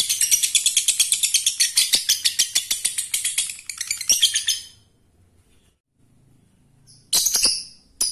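Lovebird ngekek: a long, fast chatter of sharp high notes, about eight a second, which stops about five seconds in. After a short pause, a few separate louder chirps come near the end.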